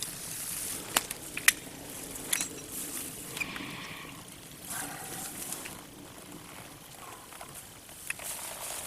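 Rope-climbing gear being handled: a few sharp metal clicks from the ascenders (rope grabs), the two loudest about a second in and half a second apart, amid rustling of rope and clothing.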